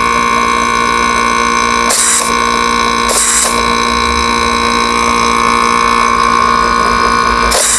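The rotary compressor of a Samsung split air-conditioner outdoor unit runs on a test with a steady hum and high whine, working after a new thermal protector was fitted. Twice, about two and three seconds in, there is a short hiss of air blowing from the service-valve port.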